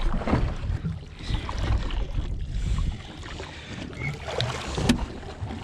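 Small boat at sea: wind on the microphone and water washing against the hull, a steady low rumble.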